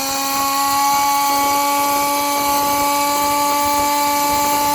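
Small electric fluid pump whining at one steady pitch while it pumps automatic transmission fluid into the gearbox.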